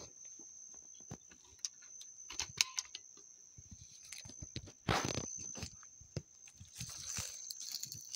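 Scattered rustles, clicks and crackles, with a louder rustle about five seconds in, over a steady high-pitched whine.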